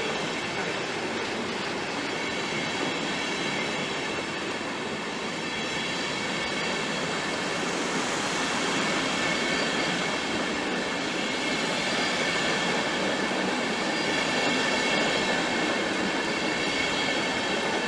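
Passenger coaches of a German Federal Railway train rolling past on the station track: a steady rumble of wheels on rail with faint, thin high-pitched wheel squeal over it, growing slightly louder in the second half.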